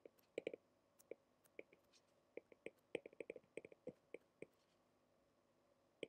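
Faint, irregular clicks and taps of a stylus writing on a tablet screen, falling quiet near the end.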